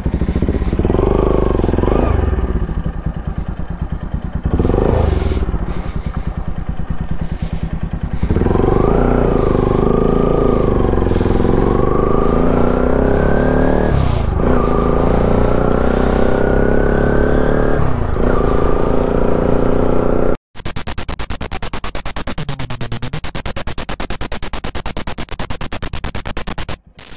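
Motorcycle engine pulling away and accelerating, its pitch climbing and dropping back twice as it shifts up through the gears, heard over wind rushing on the microphone. About two-thirds of the way through, the sound cuts abruptly to a steady rough noise.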